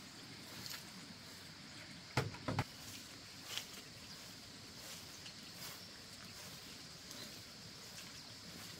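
Faint steady background hiss, with two short knocks in quick succession a little over two seconds in and a few fainter clicks after.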